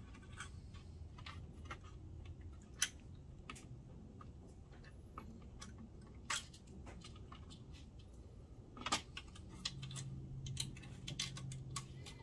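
Scattered light clicks and taps of hands handling a projector's plastic top case and keypad circuit board, with a few sharper clicks, and a faint low hum for a couple of seconds near the end.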